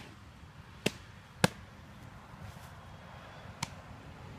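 Four sharp smacks during a softball pitch, the loudest about a second and a half in, including the ball popping into the catcher's mitt.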